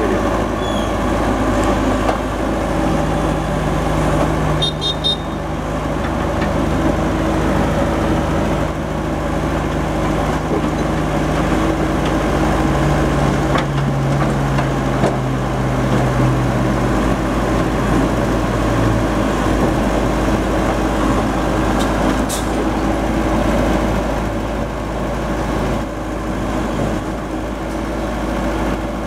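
Heavy diesel engine running steadily. A droning note steps down in pitch about halfway through and stops a few seconds later. There are a couple of short clicks, one early and one about two-thirds in.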